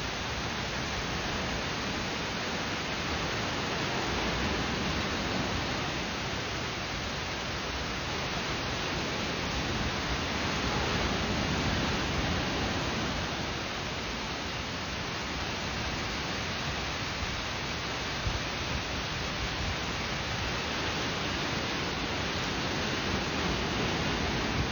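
Heavy monsoon rain falling, a steady rushing hiss that swells and eases slightly.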